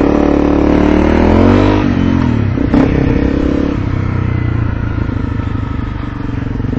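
Motorcycle engine accelerating, its pitch rising for the first second and a half and dropping at about two seconds in, then running at a steadier note.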